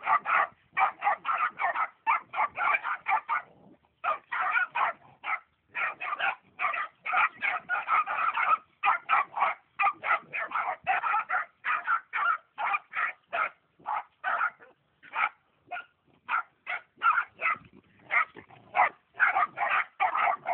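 Cur puppies yipping and barking in a rapid, near-unbroken string of short calls, with a brief pause about three and a half seconds in.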